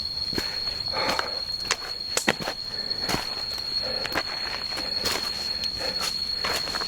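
Footsteps on a rocky dirt trail, irregular scuffs and crunches, over a constant high-pitched ringing drone of insects.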